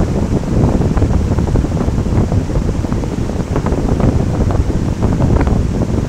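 Large waterfall, Kutralam's Main Falls, pouring heavily down a rock face. It makes a loud, steady rush of water, heaviest in the low end, with many small splashes running through it.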